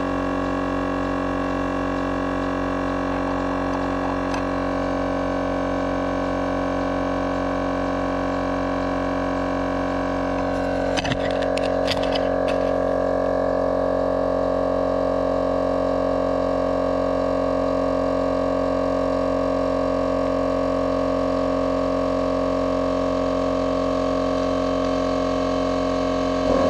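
Air Armor 12-volt portable tire inflator compressor running steadily while pumping up a tire, a constant droning hum. A few clicks about eleven seconds in, after which it runs slightly louder.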